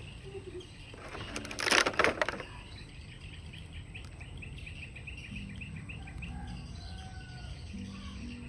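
Faint background of birds chirping in quick, repeated short notes. About a second and a half in there is a brief burst of clicks, the loudest sound.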